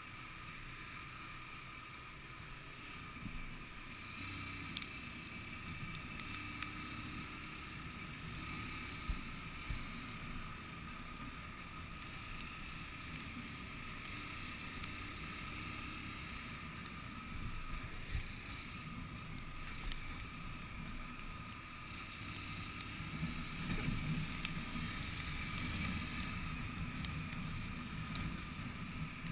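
Motorcycle riding at road speed: steady engine and tyre noise under wind rush on a helmet-mounted camera, with the low rumble swelling a few seconds before the end.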